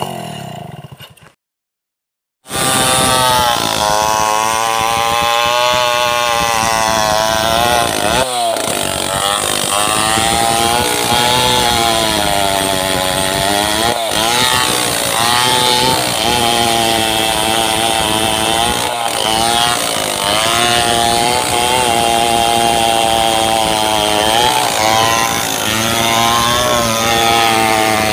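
Two-stroke petrol chainsaw ripping a coconut palm log lengthwise, its engine pitch repeatedly dipping under load and recovering. Near the start the saw winds down and there is about a second of silence before the loud cutting picks up again.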